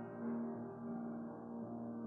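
Slow keyboard music: a held chord sustains and slowly fades, with a note or two changing inside it.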